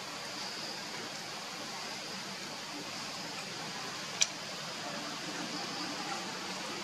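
Steady outdoor background hiss with a faint high, even hum, broken once by a single sharp click about four seconds in.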